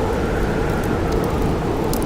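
Steady blizzard wind blowing with a deep rumble, while a campfire crackles with small sharp pops here and there, the sharpest near the end.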